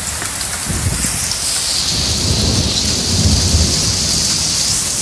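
Heavy rain pouring down in a severe thunderstorm, with deep rumbles swelling about a second in and again from about two to nearly four seconds in.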